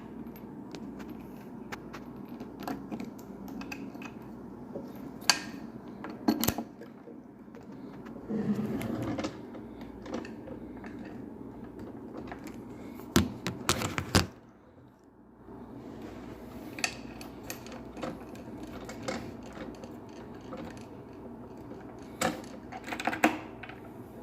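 Scattered small clicks and taps of metal cam-lock parts and keys being handled and fitted into a drawer, with a few sharper clusters of clicks about five, thirteen and twenty-two seconds in.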